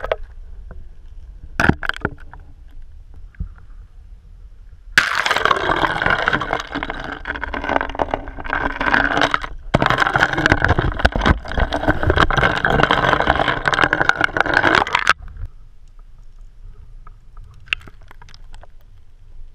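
Muffled water and handling noise heard through a GoPro's underwater housing, submerged in a meltwater-filled cryoconite hole: a low rumble with a few knocks, then a loud, dense, crackling rush that starts abruptly about five seconds in, breaks off briefly once and stops suddenly about fifteen seconds in.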